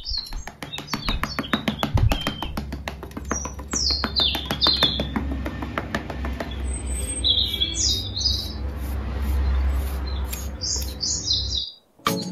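Birds chirping in short high calls over a background music track with a fast ticking beat; the sound cuts out briefly near the end.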